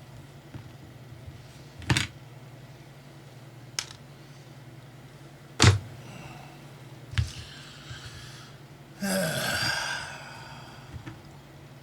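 Laptop power button being pressed, giving four sharp, separate clicks a second or two apart, as its repaired spring is tested. About nine seconds in, a rougher noisy sound lasts about a second.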